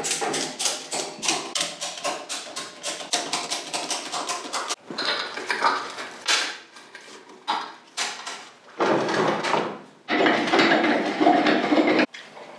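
Workshop tool noise while a motorcycle is stripped: a fast run of sharp clicks and knocks, then scattered knocks, then two longer noisy bursts near the end.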